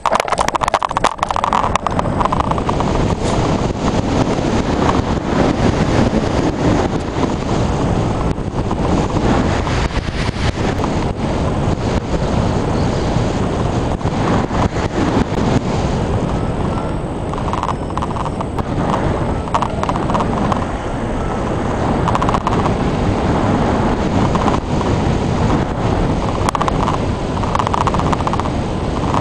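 Wind buffeting the microphone of a camera mounted on a hang glider in flight: a loud, continuous, uneven rush of air.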